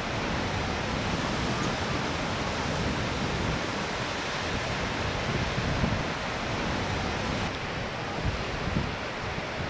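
Steady rush of a white-water mountain stream, with wind gusting on the microphone.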